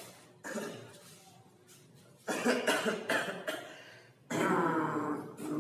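A person doing a 'beatbox cough': coughs and throat sounds strung together in rhythm like beatboxing. A short cough at the start and another about half a second in, then two longer, louder strings of coughs and voiced noises from about two seconds in.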